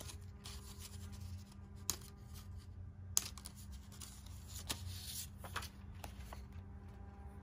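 A knitting-machine punch card being handled: soft rustling and flexing as the card is rolled and flattened, with a few sharp clicks, over a steady low hum.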